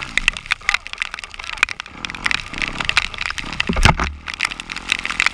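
Heavy rain striking the camera in dense sharp ticks, over an off-road vehicle's engine rising and falling in revs. A louder low thump about four seconds in.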